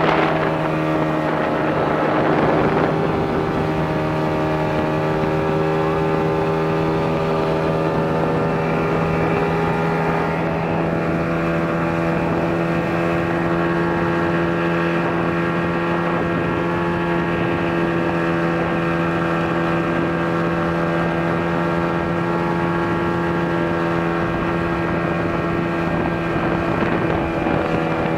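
Speedboat engine running steadily at speed while towing an inflatable tube, its pitch holding level throughout, with rushing water and wind on the microphone.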